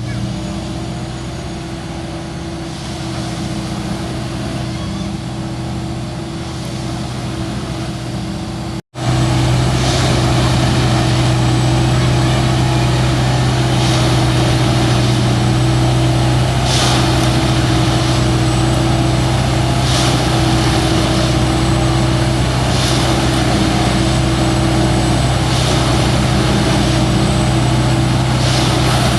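Diesel engine of a railway track maintenance machine running steadily. After a break about nine seconds in it is louder and closer, with a short hiss roughly every three seconds.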